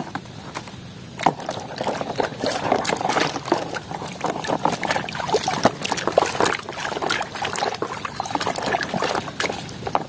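Plastic toy truck being swished and rubbed by hand in a tub of muddy water: irregular splashing and sloshing, starting about a second in.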